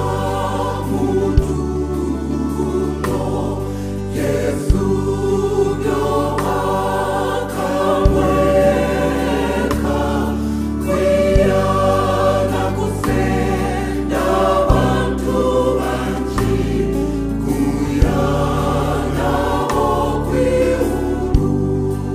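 Women's choir singing a gospel song in Kaonde, over a backing track with a low bass line and a few sharp percussion hits.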